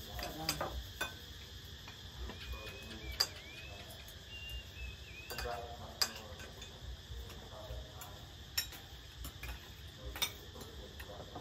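Spoons and cutlery clicking against plates and dishes now and then during a meal, over a steady drone of insects.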